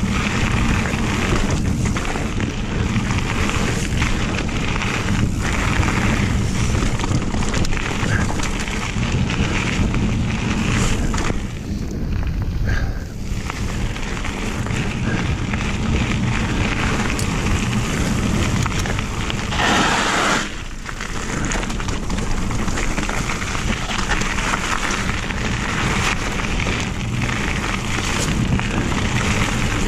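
Mountain bike riding fast over gravel trail: a steady loud rumble of tyres rolling on gravel and wind on the camera microphone, with frequent knocks and rattles as the bike goes over bumps.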